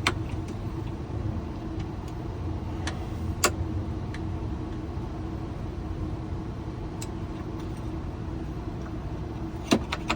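Steady low mechanical hum with a few sharp clicks and taps over it, the loudest click near the end.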